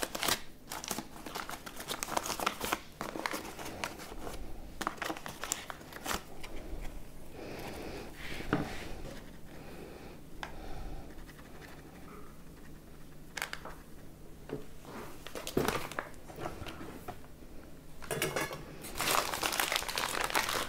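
Paper flour bag crinkling and rustling as it is opened, with a quieter stretch in the middle while flour is poured out, and crinkling again near the end as the bag is folded shut.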